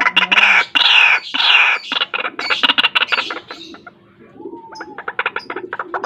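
White-breasted waterhen calling: loud, harsh croaking calls for the first three seconds or so, then a quick run of short clucking notes.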